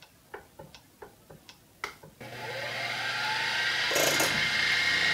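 A few light ticks, then about two seconds in a drill spindle starts and spins up to a steady whine as a twist drill bores a bolt hole in a metal motor mount. There is a brief sharper noise about four seconds in.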